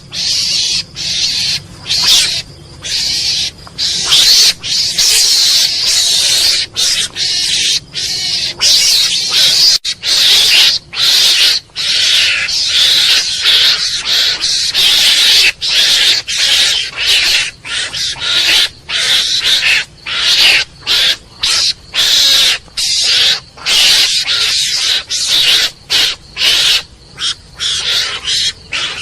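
Mongoose calling: a long string of loud, harsh, hissing chatter calls, each from a fraction of a second to about two seconds long, broken by short gaps.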